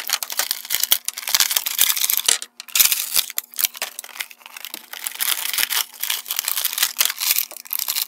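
Plastic toy blister packaging being torn open and crinkled by hand: a dense run of crackles, rustles and sharp plastic clicks, with a brief pause about two and a half seconds in.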